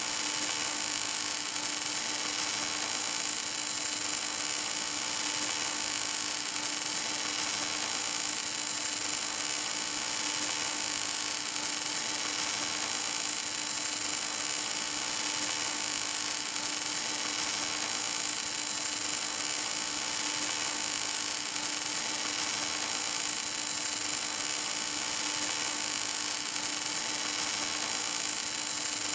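Welding arc of an HK-11W automatic pipe welding tractor burning continuously on a pipe joint: a steady hiss with a constant hum under it and no breaks.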